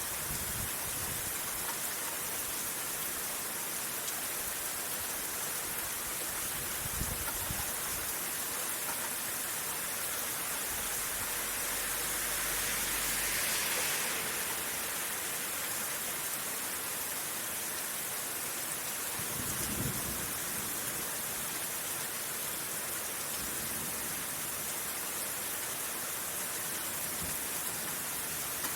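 Steady rain falling in a rainstorm, with a low rumble of distant thunder swelling and fading about halfway through.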